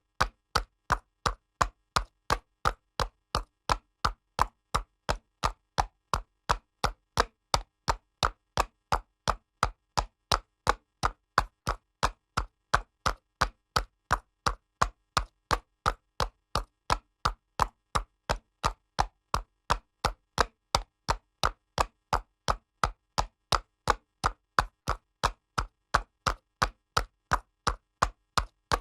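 A horse's hooves trotting on pavement: a steady, even clip-clop of sharp hoof strikes, about three a second.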